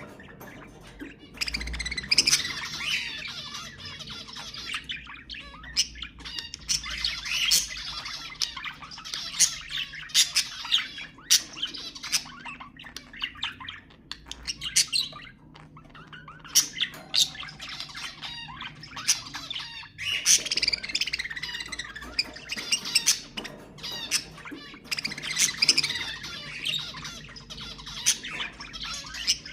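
Budgerigars chattering and warbling, a dense run of squawks and sharp chirps with brief lulls.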